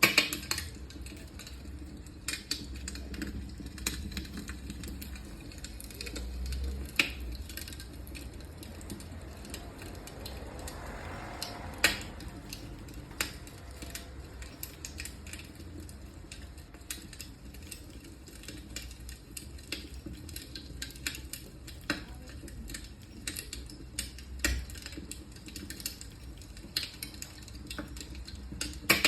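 Electric fireplace running: irregular sharp clicks and crackles, a few louder pops among them, over a low steady hum.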